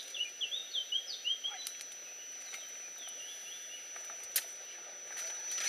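A small bird singing two runs of short, quick chirps, over a steady faint high whine, with a few sharp clicks.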